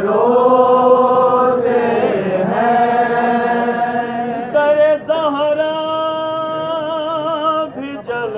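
A man singing a noha, a Shia mourning lament, in three long held notes, the last one wavering with vibrato.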